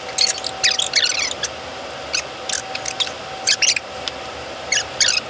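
MAC M1014 shotgun being handled and loaded at the bench: groups of short metallic clicks and rattles, with a faint steady hum underneath.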